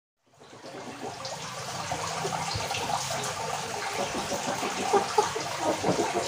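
Aquarium water trickling and splashing steadily, fading in at the start.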